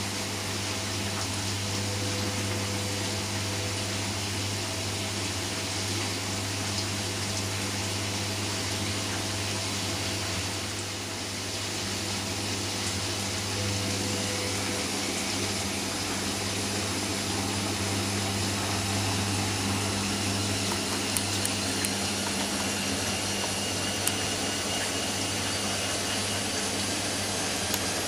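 Hoover Nextra front-loading washing machine mid-cycle, with water in the drum: a steady electrical hum under the rush of water. A faint rising whine joins in during the second half.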